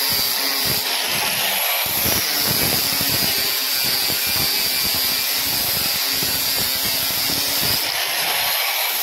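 Electric angle grinder running steadily with a high motor whine, its abrasive disc grinding down the weld bead on aluminium sheet.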